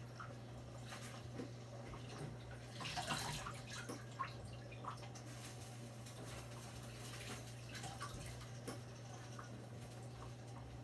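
Pot of mung beans simmering, with faint irregular bubbling and popping over a steady low hum.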